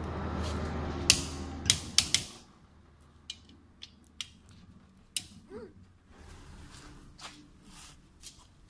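Torque wrench ratcheting and clicking on the crankshaft bolts of a Nissan Navara engine block as they are tightened to 10 kg, a string of sharp metal clicks spaced irregularly. A low hum runs underneath for the first two seconds and then stops.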